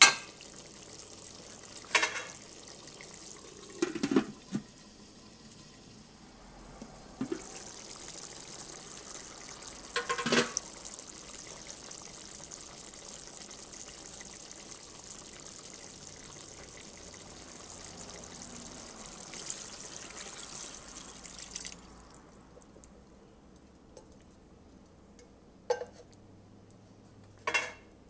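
Liquid poured into a pot of sautéed steak, onions and mushrooms: a steady hiss of running liquid that lasts about fourteen seconds and stops suddenly. A few short knocks of utensils on the pot come before and after it.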